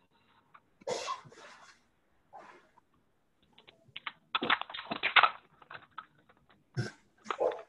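Scattered light taps and clicks, with a dense run of quick taps around the middle.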